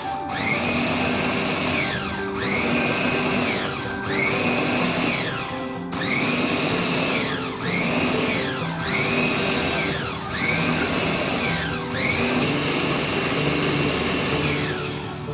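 Electric blender pulsed in short bursts, the motor whining up to speed and winding down each time, about ten times, the last burst running longest. It is coarsely chopping pineapple for jam.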